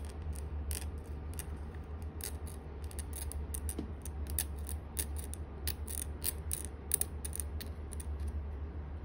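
Steel universal curet working the plastic teeth of a typodont in small strokes: an irregular run of sharp little clicks and scrapes, several a second, that stops shortly before the end. A steady low hum lies underneath.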